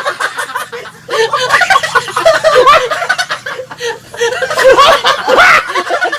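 People laughing, snickering and chuckling in short bursts.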